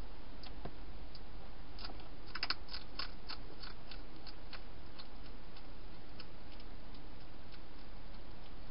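Hedgehog crunching dry food: a quick run of sharp crunches about two to three and a half seconds in, then scattered single clicks.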